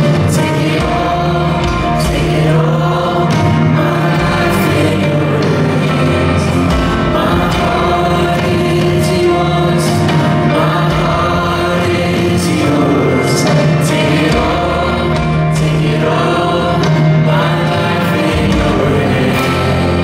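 A live praise-and-worship band playing continuously: several singers sing a worship song together in harmony over electric and acoustic guitars.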